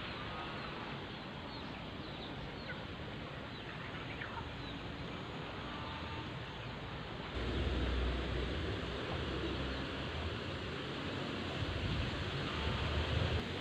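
Outdoor ambience with small birds chirping faintly now and then. About seven seconds in, a louder low rumble of wind on the microphone sets in and swells a couple of times.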